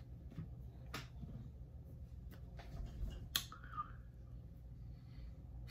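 A person's small mouth and throat noises: a few faint sharp clicks, and a short wavering vocal sound a little past halfway, over a low steady room hum.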